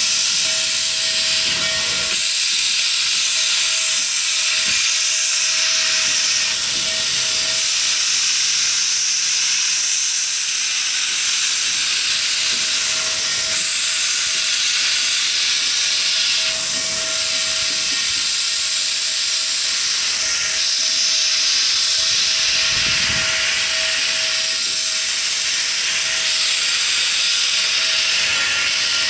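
Norfolk and Western 611's steam blowing hard from the open cylinder cocks on both sides of the 4-8-4 steam locomotive: a loud, steady hiss with a thin steady tone beneath it.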